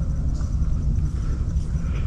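Steady low rumbling noise, with faint higher rustle-like sounds above it.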